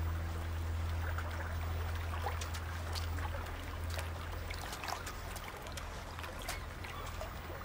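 Shallow water trickling over pebbles, with small splashes and clicks of stones as a raccoon feels about in the shallows with its front paws. A low steady hum fades out about halfway through.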